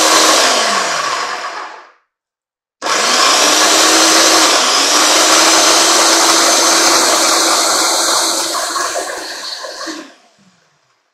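GE food processor motor running as it purées softened dried chilies in their soaking liquid: one run stops about two seconds in, then after a short pause a second, longer run of about seven seconds that winds down near the end.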